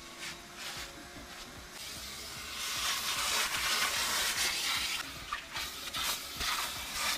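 Vacuum cleaner sucking through its hose over a car's floor carpet: a rushing hiss that grows louder a couple of seconds in and rises and falls as the nozzle is moved around.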